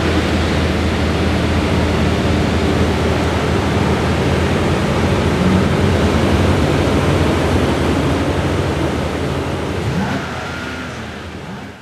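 Several tuned high-powered car engines running and revving together in a hangar, a dense steady roar that fades out near the end.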